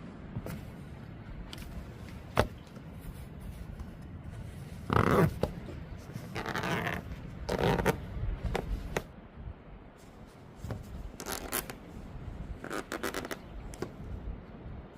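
Handling noises: a sharp click about two and a half seconds in, then a series of rustling and scraping bursts, the loudest about five seconds in.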